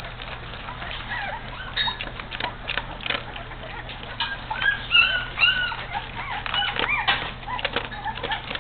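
18-day-old Great Dane puppies squeaking and whining as they eat, with many quick wet smacking and lapping clicks from the food bowl. A run of high arched squeals comes about halfway through and is the loudest part.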